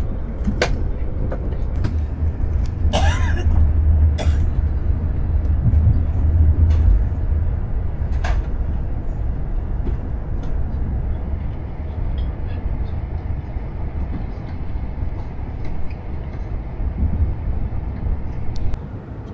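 Steady low rumble of a high-speed train running, heard from inside the passenger carriage, with scattered light clicks and a short higher-pitched sound about three seconds in.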